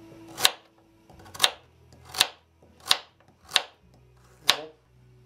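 Kitchen knife slicing through raw carrot and striking a wooden cutting board. There are six separate cuts, each a short crunch ending in a sharp tap, at an unhurried pace of roughly one cut every three-quarters of a second.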